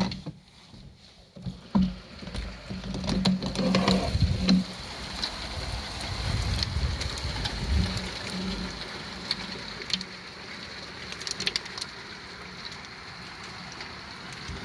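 Heavy rain and hail beating on a window: a steady hiss with many scattered sharp ticks of hailstones, and a low rumble through the first half.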